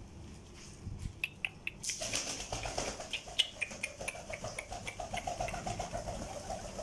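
Domestic pigeons scuffling, wings beating and slapping in a rapid flurry that starts about two seconds in, after a few sharp taps.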